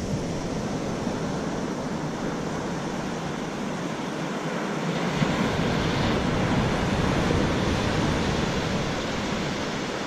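Ocean surf breaking and washing up a sandy beach, a steady rush that swells about five seconds in as a wave runs up the sand.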